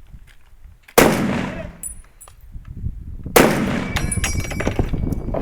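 Two gunshots about two and a half seconds apart, each with a long echoing tail, the second followed by a quick run of metallic clicks and rattles with brief ringing.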